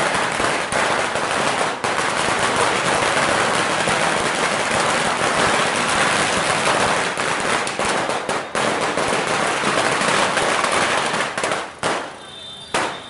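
Firecrackers going off in a rapid, continuous crackle of bangs. It thins to a few last pops about twelve seconds in and then stops.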